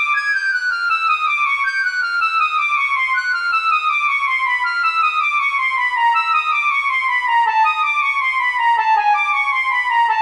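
Music: layered notes stepping steadily downward in pitch, a continuous falling scale.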